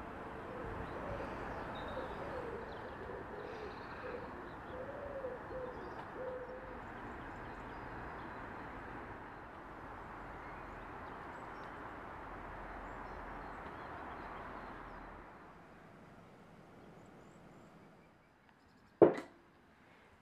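A bird cooing, several low calls in the first seven seconds, over a steady outdoor hiss that fades out about two-thirds of the way through. Near the end comes a single sharp knock, the loudest sound.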